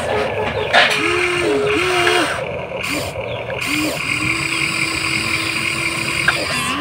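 Small electric motors of a Huina 1593 remote-control excavator whining as the boom and bucket move: several short runs that glide up in pitch, hold and drop away, then one longer even whine of about two seconds. A short knock comes about a second in.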